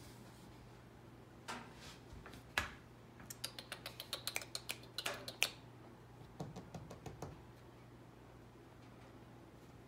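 Faint light clicks and taps on a hard floor, starting about a second and a half in and running quickly, several a second, through the middle, then a few softer taps. A low steady hum lies underneath.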